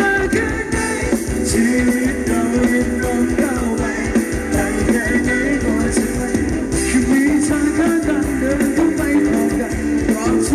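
Live band playing Thai ramwong dance music, loud, with a steady beat and a voice singing over it.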